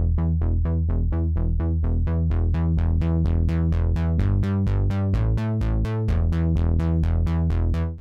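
Korg microKORG software synthesizer playing its A.61 NewWave Bass preset: a fast, even run of plucked synth-bass notes, about four a second, moving between a few low pitches. Each note starts bright and quickly dulls. It cuts off abruptly at the very end.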